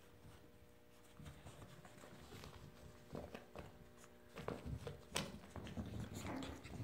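Two puppies playing and scuffling: faint at first, then from about three seconds in a busy run of small knocks, paw scrabbles and taps that grows louder toward the end.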